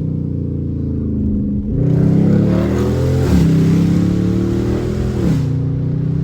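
5.7-litre HEMI V8 of a Dodge Charger R/T with its rear and middle mufflers cut out, accelerating hard. The exhaust note jumps about two seconds in and climbs in pitch, dropping at an upshift a little past three seconds and at another upshift about five and a half seconds in, then settling to a steady cruise.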